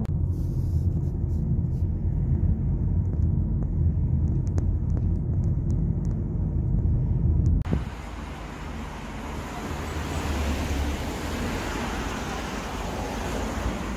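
Low, steady road and engine rumble heard from inside a moving car. About eight seconds in it cuts to a quieter, even street hiss with passing traffic.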